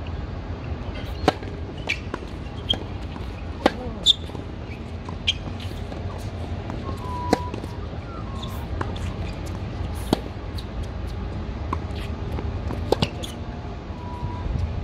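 Tennis rally on a hard court: rackets striking the ball and the ball bouncing, heard as sharp, irregular pops a second or several apart, over a steady low rumble.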